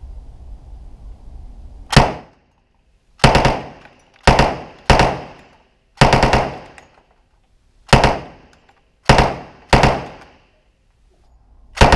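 Thompson submachine gun (.45 ACP) firing on full-auto in short bursts of a few rounds and single shots, about nine in all, a second or so apart, each ringing off in the indoor range booth.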